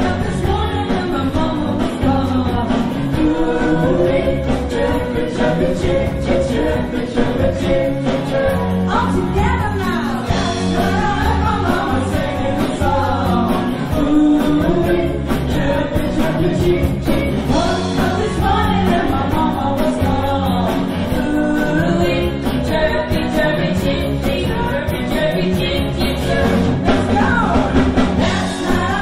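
Live band playing seventies-style pop rock: a woman singing lead over the band, with a steady beat.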